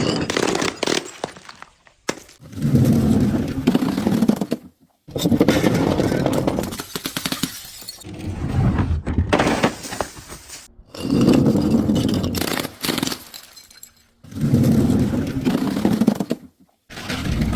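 Objects, including glass, being crushed: about six short bouts of crunching, cracking and shattering, each a couple of seconds long and cut off sharply before the next.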